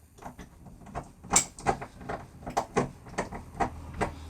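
Rim lock being handled and worked on a timber door as it is taken off: a run of irregular clicks and knocks from its metal parts, the loudest about a second and a half in.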